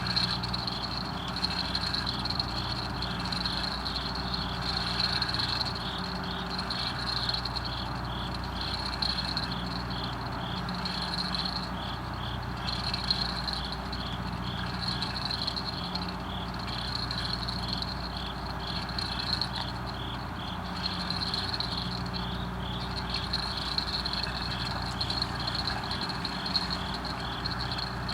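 A night chorus of chirping crickets and other insects: one high chirp repeats about three times a second, and another comes in bursts about a second long. A lower call repeats in time with them over a steady background hiss.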